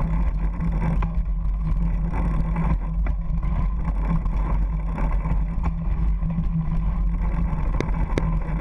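Mountain bike rolling fast over a dirt singletrack, heard through a handlebar-mounted camera: a steady low rumble of tyre and wind noise, with a sharp rattle from a bump every second or two.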